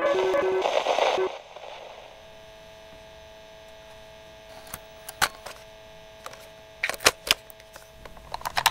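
Piano notes broken off by a loud burst of static that cuts out about a second in, leaving a steady electrical hum with scattered clicks and crackles: the sound of a tape failing to play.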